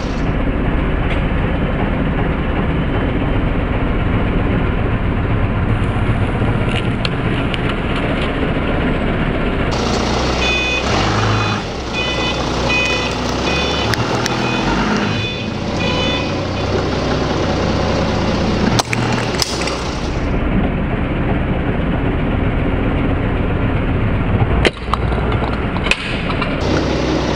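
Forklift engine running steadily close by. For several seconds midway its reversing alarm beeps about twice a second. A few sharp cracks near the end as the tyre crushes objects under it.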